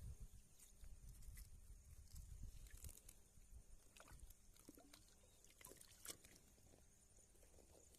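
Near silence: a faint low rumble with scattered small clicks and ticks.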